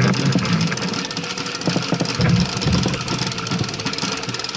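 Wind buffeting the microphone in irregular low gusts over the steady rush of a sailing yacht moving through the water.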